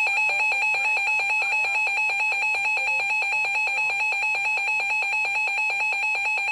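Emergency Alert System attention signal: a loud, steady electronic alert tone that switches rapidly between two pitches, announcing the next warning.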